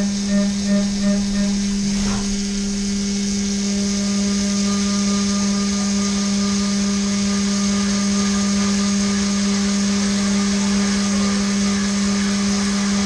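Haas VF3-SSYT CNC vertical mill roughing at high feed with an IMCO end mill: the cut gives a strong steady tone with overtones. It pulses a few times a second for the first second and a half, there is a brief knock about two seconds in, and then it runs steadily.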